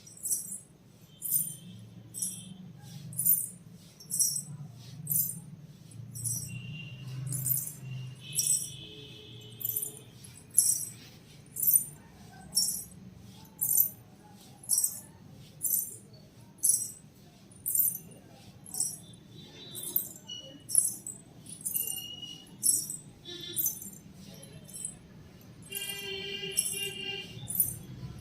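Payal anklet bells jingling in short, sharp shakes, about one a second, in a steady rhythm as the feet move.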